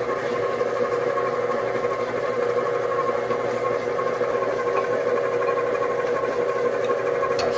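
Electric stand mixer running steadily, its flat beater turning sugar, oil and eggs in a glass bowl: an even motor whine.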